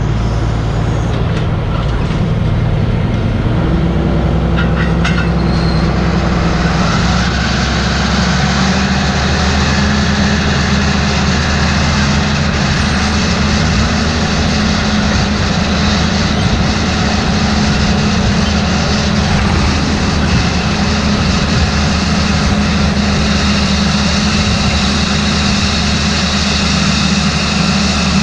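Farm tractor's diesel engine running steadily under way, with a broad machinery hiss that builds up about seven seconds in.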